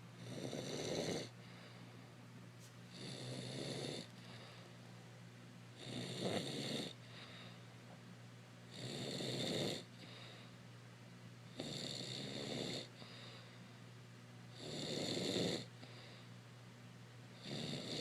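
A woman snoring in her sleep, a rough snore of about a second on each in-breath, coming about every three seconds in a steady rhythm.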